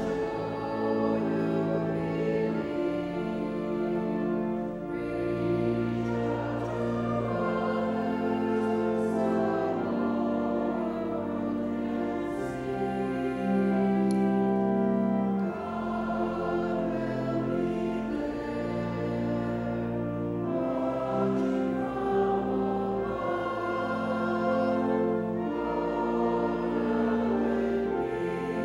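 Congregation and choir singing a hymn together with pipe organ accompaniment, in long sustained chords that change every second or two over steady low bass notes.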